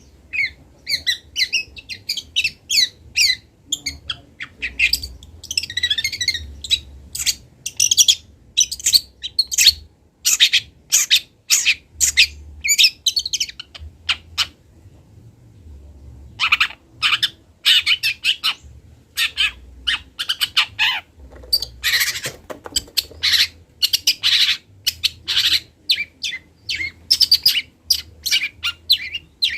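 Juvenile long-tailed shrike (cendet) singing while still learning its song: rapid strings of short, high notes, with a pause of about two seconds halfway through.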